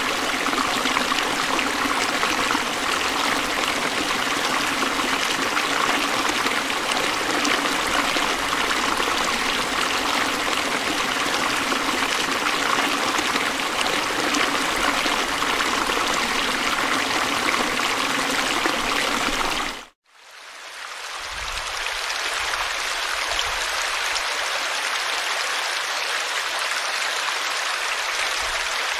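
A forest stream running over rocks in a steady rush. About two-thirds of the way in the sound cuts out for a moment. It fades back in as a thinner, hissier splash of water spilling over a small ledge into a pool.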